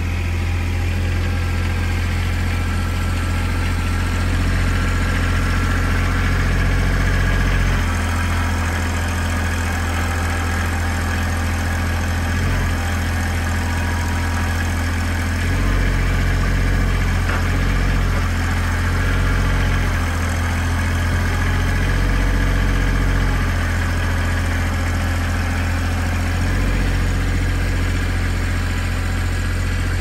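Compact tractor engine running steadily, its low note stepping up and down several times as the tractor works with its pallet forks, lifting a log.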